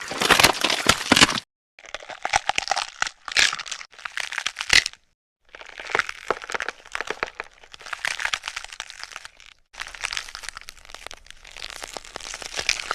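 A series of crackly, hissing noise bursts with short silent gaps between them: homemade sound effects made to stand for an anaconda.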